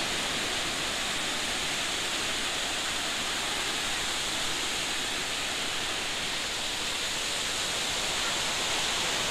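Steady rushing of a rocky river waterfall, white water pouring over rock ledges with an even, unbroken noise.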